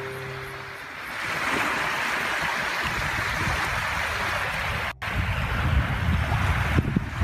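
Small waves lapping on a bay shoreline, a steady watery hiss with wind rumbling on the microphone. The sound cuts out for an instant about five seconds in, and the wind rumble is stronger after that. A held guitar note fades out in the first second.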